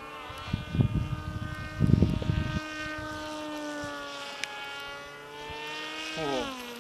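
Electric RC model airplane's motor and propeller whining overhead, the pitch drifting as it flies and then dropping sharply about six seconds in. Two loud bursts of low rumble on the microphone in the first few seconds.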